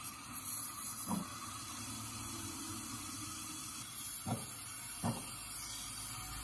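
Brazing torch flame hissing steadily while a copper refrigerant pipe joint on a refrigerator compressor is brazed, with a few light knocks about a second in and twice more near the end.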